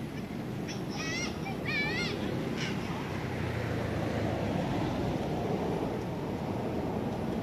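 Steady outdoor background rumble with two short, high, wavering calls about one and two seconds in.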